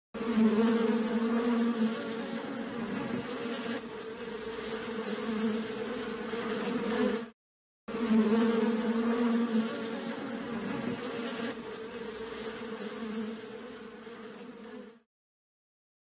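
Honeybee swarm buzzing, a steady low hum. It breaks off for about half a second around the middle and stops about a second before the end.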